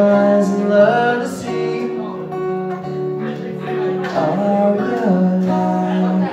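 Acoustic guitar strummed live, with a man singing along into a microphone.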